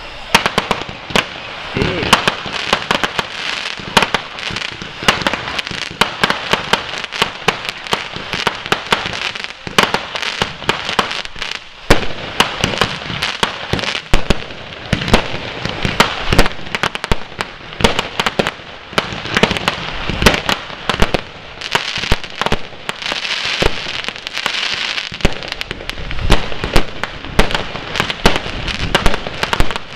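Fireworks going off in quick succession: many sharp bangs packed close together over constant crackling.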